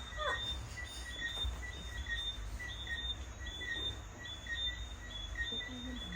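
A regular high chirping, three to four short chirps a second at two pitches, over a steady low rumble, with a faint voice briefly near the end.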